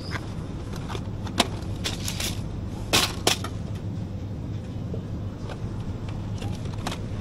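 Supermarket background: a steady low hum with scattered clicks and knocks of goods and fittings being handled. The loudest are a sharp knock at about a second and a half and a pair of knocks about three seconds in.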